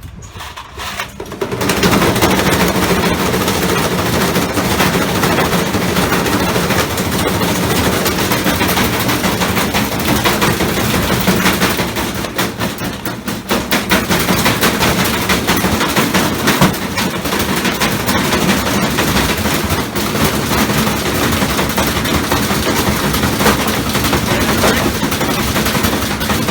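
Washing machine running with a hard, heavy load in its drum, which bangs and clatters very rapidly and loudly against the drum and cabinet over a steady motor hum. It starts about a second and a half in and keeps up without a break.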